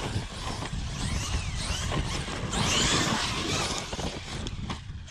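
Traxxas XRT RC truck's Hobbystar 5692 brushless motor whining up and down in pitch as the truck accelerates and backs off on loose dirt, over a steady rush of noise.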